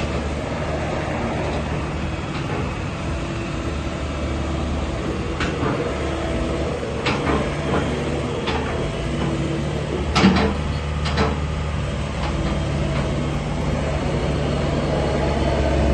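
Atlas 1304 wheeled excavator's diesel engine running steadily, with a handful of sharp clunks between about five and eleven seconds in.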